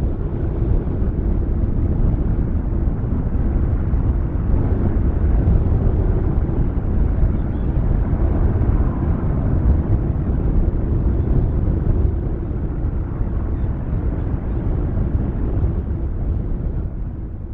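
Steady low rumble of distant jet aircraft engines, fading out at the very end.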